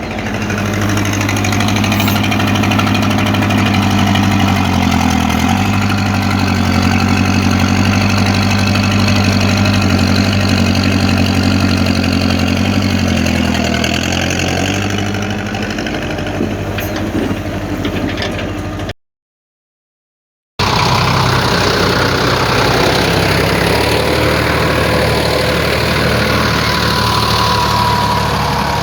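An engine running steadily at idle. About two-thirds of the way through it cuts off for a moment, then another steady engine sound follows.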